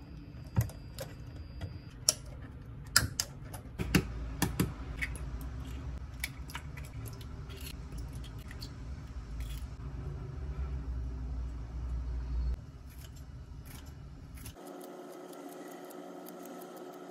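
Kitchen handling sounds: a run of sharp clicks and taps as eggs are cracked and dropped into a glass measuring cup, under a low steady hum. Near the end, scissors snip leaves into the cup.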